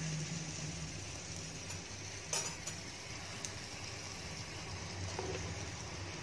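Gas stove burner flames running steadily with a low roar and hiss under whole eggplants charring directly on them, with a few faint clicks about two and a half seconds in.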